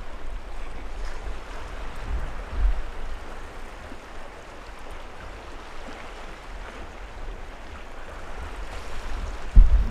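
Sea waves washing against a rocky shore, with wind buffeting the microphone in a low rumble, and a short, loud low thump near the end.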